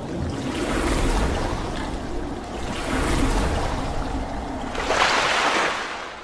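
Rushing, splashing water sound effect that swells and ebbs a few times, with the loudest splash about five seconds in, then fades away.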